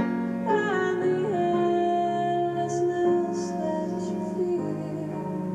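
A slow song: a sung melody holding long notes that slide from pitch to pitch, over soft instrumental accompaniment.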